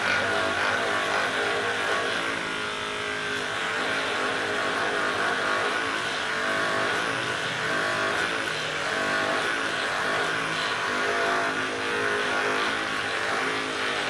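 Handheld percussive massage gun running against the muscles of a person's back, a continuous motor buzz whose pitch shifts now and then.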